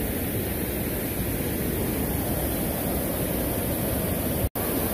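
Waterfall and whitewater rapids rushing steadily. The sound drops out for a split second near the end.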